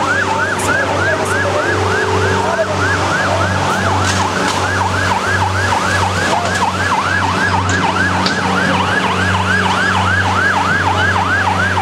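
Siren on an armoured riot-police water-cannon truck sounding a fast yelp, about four rising-and-falling sweeps a second, over a steady low hum.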